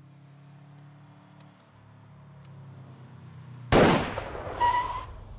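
A car engine running with a low steady hum. About two-thirds of the way in, a single loud handgun shot cracks out, and a second loud burst with a short high tone follows about a second later.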